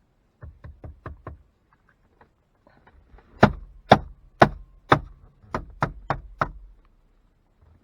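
Knocking by hand on a car's dash radio faceplate: a quick run of about five light knocks, then after a pause eight louder knocks about two a second. Tapping the faceplate to reseat a bad connection behind a glitching radio display.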